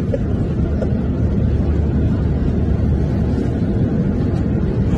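Steady low roar of jet airliner cabin noise, heard from inside the cabin.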